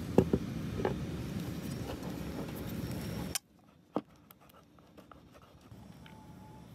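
Sharp clicks and knocks of a surfboard fin being handled and slid into the board's plastic fin box, the loudest about a fifth of a second in, over steady background noise. The noise cuts off suddenly about halfway through, leaving a quiet stretch with one more click.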